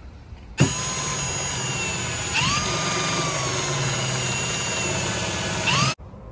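Handheld power tool running, being used to clean the spare alternator's pulley: a steady motor whine that climbs in pitch twice. It starts about half a second in and stops abruptly near the end.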